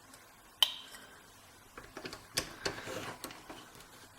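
Lock-picking tools working in the keyway of an American 5200GLKA padlock. There is one sharp metallic click with a short ring about half a second in, then a run of light ticks and scraping as the tools are worked into the tight keyway.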